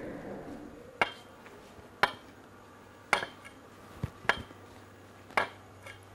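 Slow footsteps on a hard floor: a sharp step about once a second, with a low steady hum underneath.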